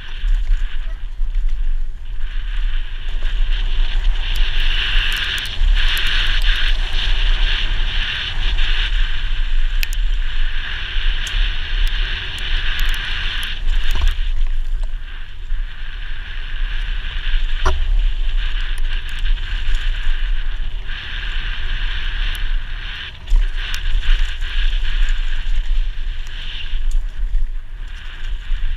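Downhill mountain bike ridden fast down a dirt forest trail, heard from a helmet-mounted camera: wind buffeting the microphone and tyres rushing over dirt and leaf litter, with a couple of sharp knocks from the bike hitting bumps.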